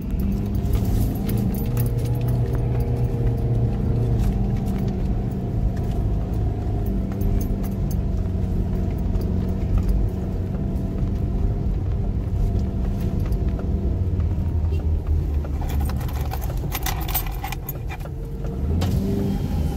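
Car interior noise while driving slowly: a steady low engine and road hum with light rattling and clicking throughout, and a louder patch of clatter near the end.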